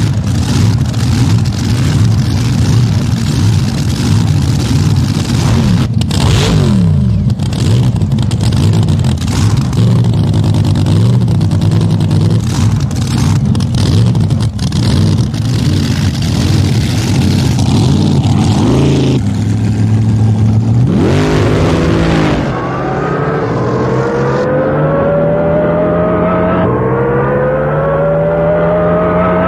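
Supercharged V8 of a Top Fuel hydro drag boat running with an uneven, rumbling beat, then in the last third revving up with a steadily rising pitch as the boat accelerates.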